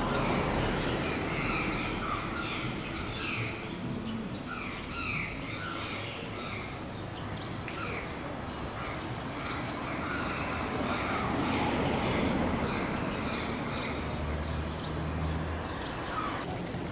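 Many birds calling, a dense stream of short, repeated chirps and squawks, over a steady background hiss.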